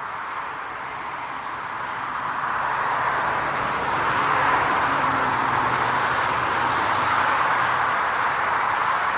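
Jet airliner engines: a rushing noise that swells over the first few seconds and then holds steady, with a faint low hum beneath.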